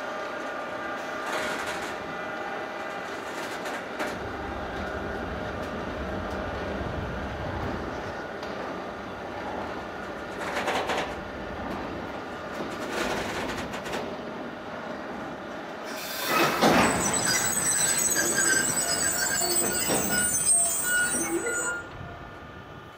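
Container freight train hauled by two Crossrail electric locomotives rolling past, its wheels squealing in several steady high tones over the clatter of the wagons. It gets louder about two-thirds of the way through, with a shrill high squeal added, then drops away sharply near the end.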